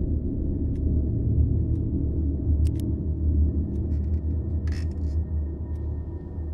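Low rumbling drone of horror-film sound design, held steady. A clock ticks faintly about once a second over it.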